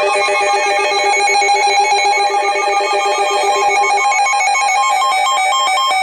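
Electronic alert tones from an Emergency Alert System relay: a steady chord of several tones that changes about four seconds in, when the lowest tone drops out and the rest begin to switch rapidly back and forth in a warbling pattern.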